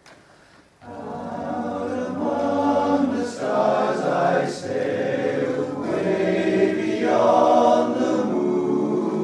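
Men's barbershop chorus singing a cappella in close harmony, the voices coming in together about a second in and holding sustained chords in swelling phrases.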